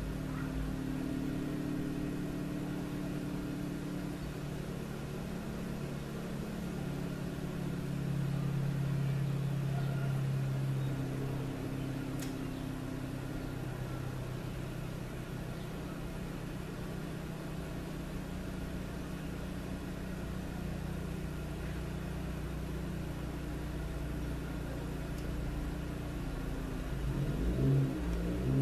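Steady low mechanical hum, swelling slightly about eight seconds in, with a brief louder bump near the end.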